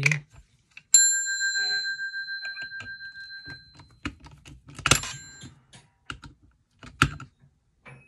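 Brass bell gong of an ITT rotary telephone struck and ringing out with a clear metallic tone that fades over about three seconds. A second knock about five seconds in rings it again briefly, followed by sharp screwdriver clicks as the gong's screw is worked loose.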